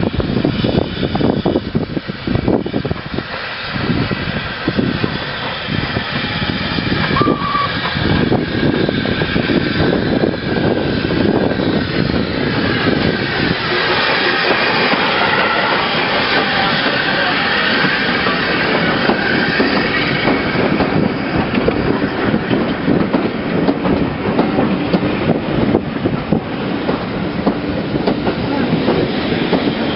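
LNWR Coal Tank 0-6-2T steam tank locomotive running into the station with its train and passing close by. Its coaches then roll past, their wheels clicking over the rail joints.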